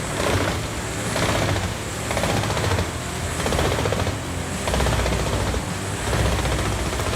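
Industrial wood chipper running under load: a heavy engine hum with a harsh surge roughly once a second as the wood is chipped.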